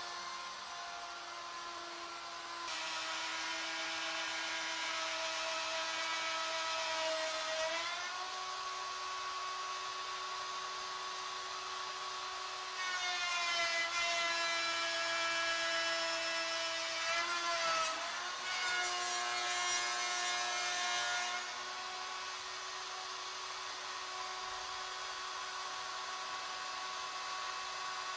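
Router on a CNC ornamental mill running, its bit milling the taper on a square wooden leg blank. The motor's steady whine shifts in pitch a few times as the cut changes, with louder stretches of cutting noise coming and going.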